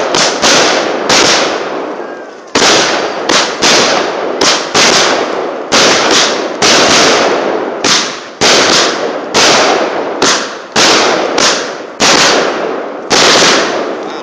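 Consumer firework cake firing a long series of loud bangs, one or two a second in an irregular rhythm, each dying away in a short echo before the next.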